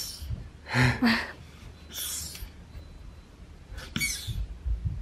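Bucklos Lutu 32 air suspension fork being pushed down and springing back, with a short hiss on each stroke, three times a second or two apart. The rebound adjuster is set to 20 clicks, and the damping is working.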